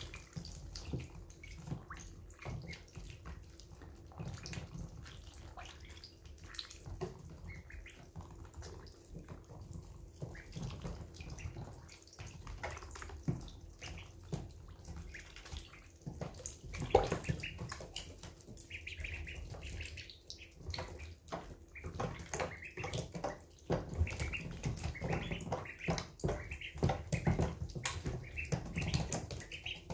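Week-old ducklings dabbling and drinking at a water dish and pecking at feed: a constant patter of small splashes, slurps and bill taps that grows busier about halfway through, with some soft peeping near the end.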